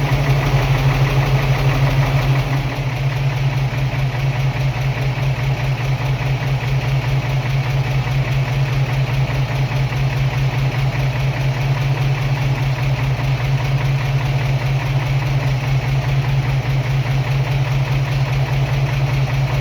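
1978 Toyota FJ40 Land Cruiser's 2F inline-six engine idling steadily on its first run after a spun bearing was repaired. It runs a little louder for the first couple of seconds, then settles to an even idle.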